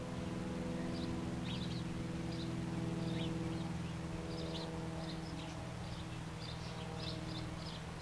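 Birds chirping in short, scattered calls over a steady low mechanical hum.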